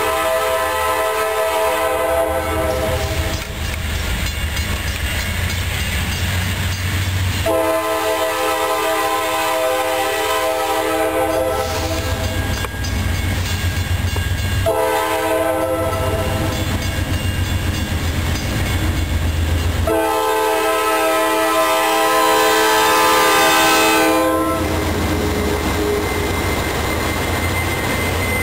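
Diesel freight locomotive's air horn sounding four long blasts, the third a little shorter, over the steady low rumble of the locomotives' diesel engines as the train approaches. After the last blast, about 24 seconds in, the locomotives run close by with their engines droning.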